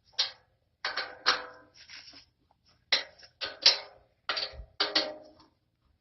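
Allen wrench working steel set screws on a metal rack: a series of short metallic clinks, each ringing briefly, spaced irregularly.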